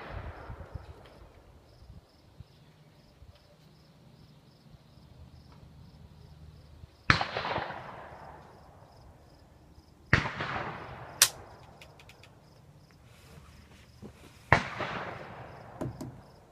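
Gunshots, four in all, spaced a few seconds apart: three ring out and fade over a second or two, and the third is a shorter, sharper crack that follows about a second after the second shot.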